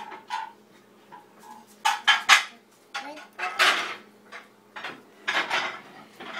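Dishes and cutlery clinking and clattering in an open dishwasher rack as pieces are taken out. There are several sharp clatters: a quick run of them about two seconds in, another near the middle, and another about five seconds in.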